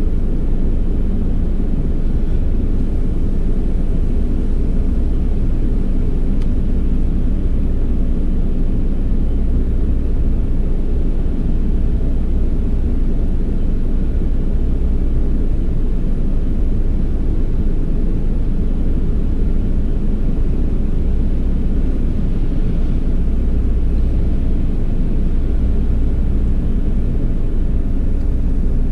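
Steady low rumble of an idling car, unchanging throughout.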